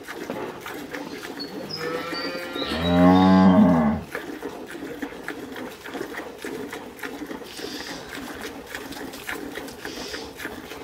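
A cow moos once, a long low call from about a second in until about four seconds in. After it come faint repeated squirts of milk into a steel pail as the cow is milked by hand.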